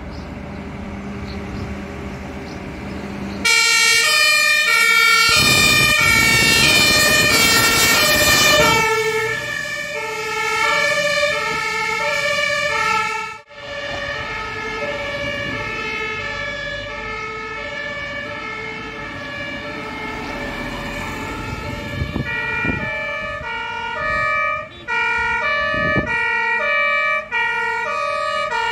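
Fire engines on an emergency run sounding the German two-tone siren (Martinshorn), stepping steadily back and forth between two pitches over diesel engine and tyre noise. The siren starts suddenly a few seconds in and is loudest as the first truck passes close. Near the end a second siren overlaps with a faster alternation.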